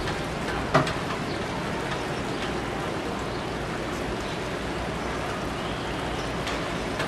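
Steady, even wash of outdoor ambient noise, with one sharp click just under a second in.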